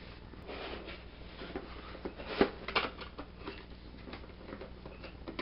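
Light handling noise: scattered soft knocks, taps and rustles as a plastic and die-cast toy robot is put down on a bedspread and its cardboard box is handled, the sharpest knocks about two and a half seconds in.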